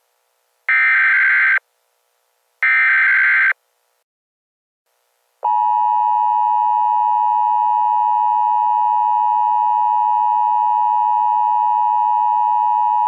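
Emergency Alert System activation tones. First come two buzzy, screeching bursts of SAME digital header data, about a second each. After a short pause, the steady two-tone EAS attention signal (853 and 960 Hz together) starts and holds for about eight seconds.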